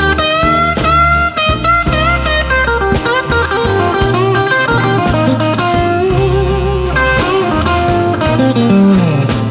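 Electric blues band playing an instrumental passage: a lead guitar with notes that bend and waver, over bass and drums.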